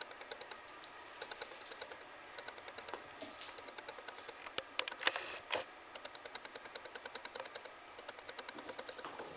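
Light taps and clicks of a cat batting a small toy ball across a tile floor, with two louder knocks about five seconds in, over a steady fast light ticking.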